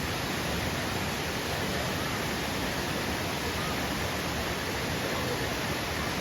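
Waterfall pouring into a gorge pool: a steady, even rush of falling water.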